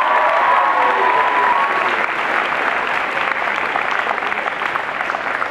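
Large crowd applauding steadily in a school gymnasium, with one voice holding a long cheer over the clapping for the first couple of seconds.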